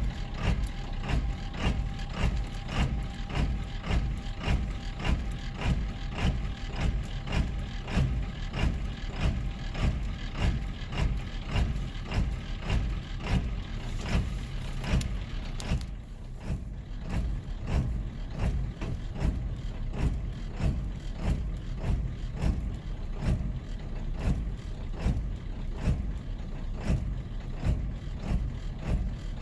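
7.3-litre V8 diesel engine idling roughly just after startup, its clatter carrying a regular heavy pulse about twice a second.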